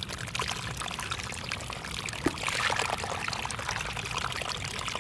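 Water pouring steadily with many small splashes, a continuous running-water sound that stops abruptly at the end.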